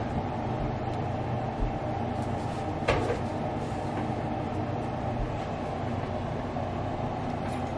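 Steady mechanical hum of room machinery, with a single sharp click about three seconds in.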